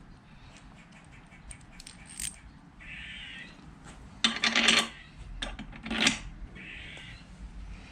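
Small steel bolts, nuts and washers clinking and rattling as they are handled and fitted, with a louder jangle about four and a half seconds in and another clink around six seconds.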